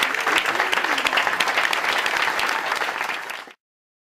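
A crowd of people applauding, with a few voices rising over the clapping early on; the applause cuts off suddenly about three and a half seconds in.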